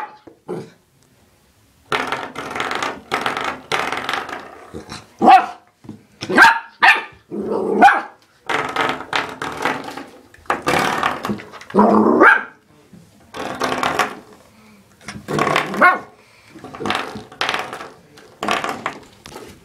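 Dog barking and growling in repeated short bursts while playing with a door stopper, with the door stopper's spring being twanged in among them.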